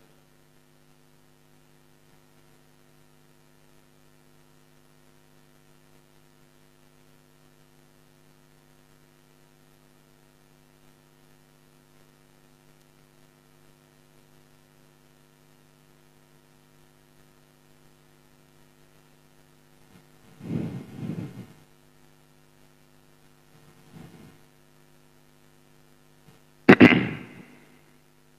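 Faint steady electrical hum from the studio audio equipment. About twenty seconds in it is broken by two short noisy sounds, then a faint one, and near the end by a sharper, louder one.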